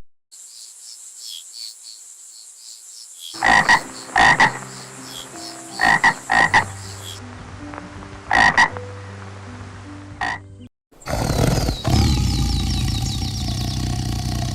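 Frog croaking in about six short, loud calls over a faint high hiss. Near the end it cuts to a steady rushing noise with quick high chirps.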